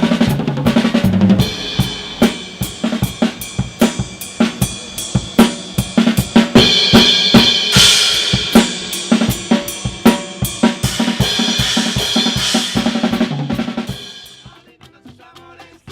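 A drum kit played live in a busy rhythm: snare, bass drum, hi-hat and cymbal strikes in quick succession, dying down near the end.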